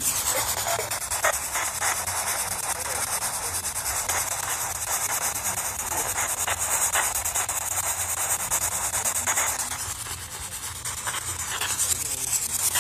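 Steady high hiss with a faint crackle through it, dipping briefly about ten seconds in.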